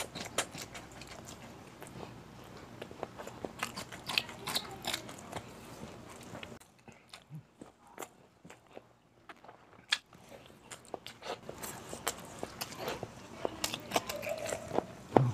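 Close-up mouth sounds of a man eating beef kaldereta and rice with his hands: chewing with many wet clicks and lip smacks. They thin out to a few soft clicks for a few seconds in the middle, then pick up again.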